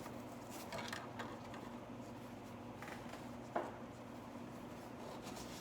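Faint rustling and scraping of a fabric-covered ABS headliner and seatbelt being handled and threaded into place, with one sharp click about three and a half seconds in.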